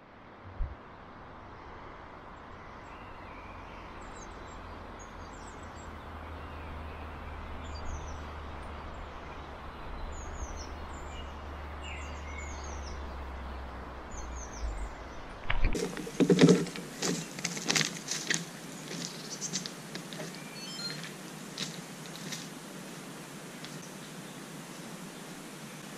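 Small birds chirping, short high calls scattered over a steady outdoor hiss and low rumble. About two-thirds of the way in the rumble stops and crunching footsteps on gravel track ballast begin, louder than the birds, slowing after a few seconds.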